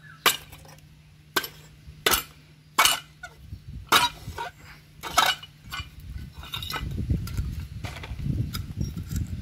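Sharp metallic knocks, about six roughly a second apart, as a two-stroke three-wheeler's removed silencer is struck to free its perforated inner baffle tube. After that come a few seconds of lower, rougher rattling and scraping as the tube is worked out.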